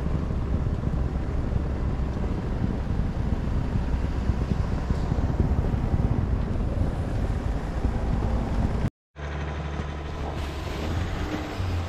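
Pickup trucks driving slowly on a snow-covered trail: a steady low engine and tyre rumble with wind buffeting the microphone. The sound drops out briefly about nine seconds in, then a lifted GMC Sierra AT4 pickup's engine runs as it crawls forward on snow.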